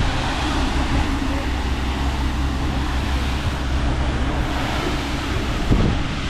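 Steady low drone of a tour boat's engines under way, with wind and water noise over it.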